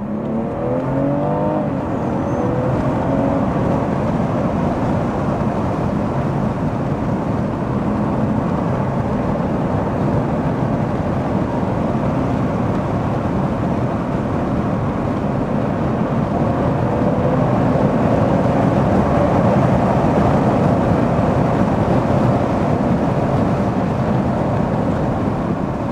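BMW M240i's B58 turbocharged straight-six through a resonator- and particulate-filter-delete Scorpion exhaust, driven hard, heard inside the cabin. The engine note rises in pitch as it accelerates at the start, then stays loud and full, loudest about two-thirds of the way through.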